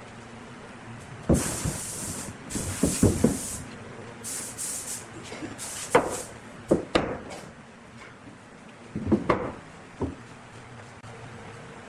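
Pieces of cut branch wood being set down and slid into place on a wooden tabletop: a series of wood-on-wood knocks, with short scraping slides in the first few seconds.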